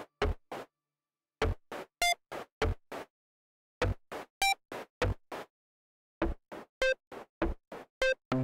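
Synthesized electronic blips and hits: short, sharp sounds, each with a low thump and many with a brief pitched tone. They come in runs of about three a second, broken by silent pauses of about a second, the last run going on to the end.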